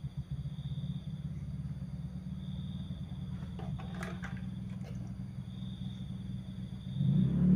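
Steady low mechanical rumble, like an engine running, that grows louder near the end, with a few light clicks and rattles about four seconds in as a TV circuit board is lifted and turned over.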